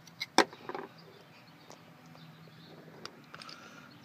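A few sharp plastic-and-metal clicks, the loudest about half a second in, then fainter scattered taps: the clear cover and screws of an inline fuse holder on a car audio power wire being handled to get at the fuse.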